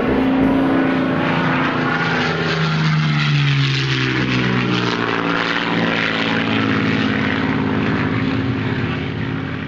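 Propeller-driven airplane flying past, its engine note dropping in pitch as it passes and fading near the end.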